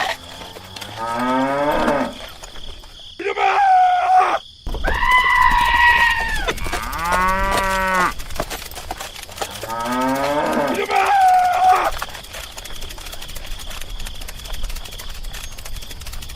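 Cattle mooing: several long, drawn-out moos one after another, some rising in pitch.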